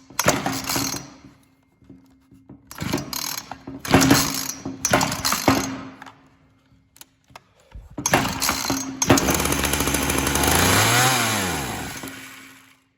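Ryobi RY3714 two-stroke chainsaw engine being pull-started, several short pulls and sputters, then catching and running for a few seconds with its pitch rising and then sagging until it dies out near the end. The engine fires but stalls when given throttle, which the owner takes for the carburetor not drawing fuel in.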